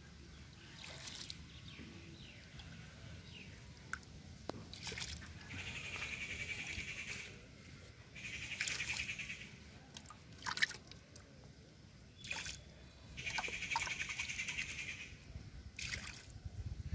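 Shallow muddy water splashing and trickling in a small dug hole in the mud: a series of short splashes and bouts of sloshing every couple of seconds.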